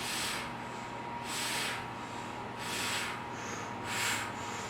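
Rhythmic breathing of a person working through a bodyweight ab exercise: four hissy breaths, about one every 1.3 seconds.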